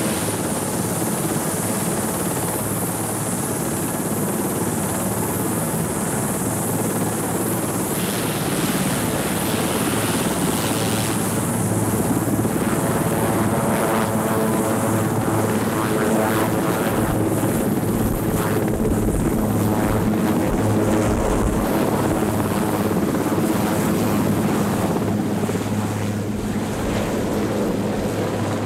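Sikorsky VH-3D Sea King helicopter running with its rotor turning, then lifting off: continuous rotor noise under a high, thin turbine whine. It grows louder about eleven seconds in as it takes off.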